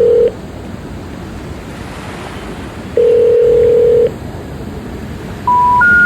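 Telephone line tones: a steady low tone of about a second sounds twice, then the three rising beeps of a special information tone, the intercept signal that means the number cannot be reached. Underneath runs a steady rush of sea surf and wind.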